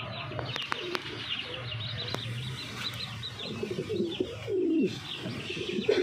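Domestic fancy pigeons cooing: a low murmuring coo in the first half, then louder swooping coos near the end. Fast, high chirping runs underneath, with a few sharp clicks.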